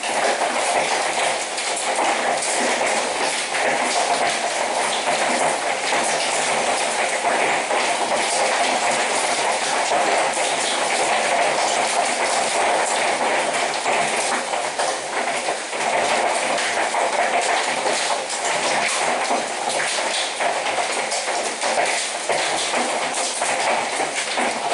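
Hailstorm: hailstones drumming against a window, a dense, steady clatter of countless small impacts.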